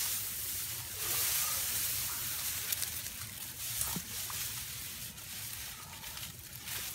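Reed and cattail stalks rustling as someone pushes through them, with a few light clicks and snaps among the rustle.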